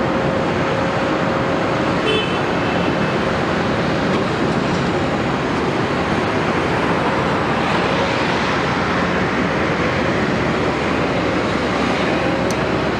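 Caterpillar 329E excavator's diesel engine running steadily at a construction site, with a short high beep about two seconds in and a sharp click near the end.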